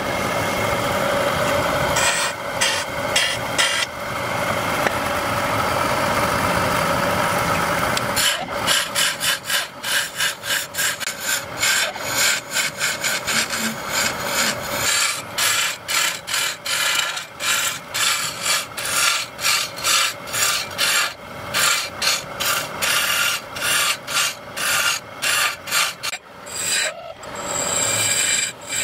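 Lathe chisel scraping and cutting into a spinning wooden blank. It cuts steadily for the first several seconds, then in rapid short strokes, a couple a second, as the profile is shaped.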